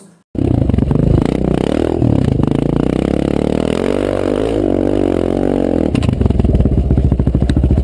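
Single-cylinder motorcycle engine exhaust, revving up and down. About six seconds in it changes to a fast, even pulsing beat.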